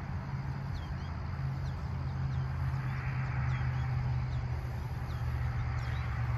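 A steady low hum under a soft outdoor hiss, with a small bird giving short, high chirps over and over.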